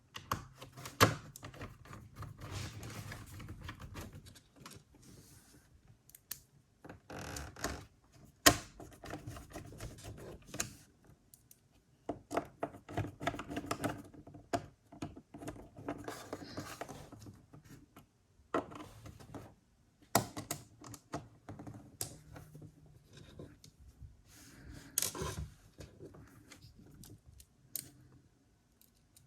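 Small screwdriver driving the screws of a laptop's bottom case: irregular bouts of clicking, ticking and scraping, with a few sharp single knocks and short quiet gaps between.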